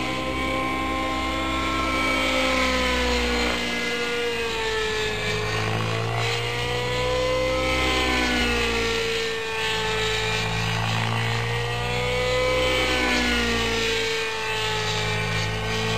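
Vibe 90 radio-controlled model helicopter in flight, its nitro engine and rotor running at high speed. The pitch swings up and down every few seconds as it flies about.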